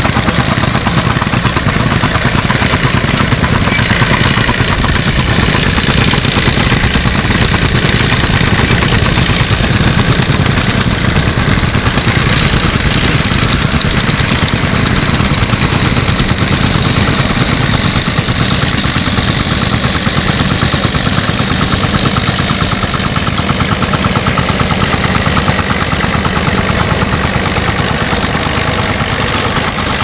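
Vintage tractor engine running steadily, with a loud, rapid, even beat of exhaust pops.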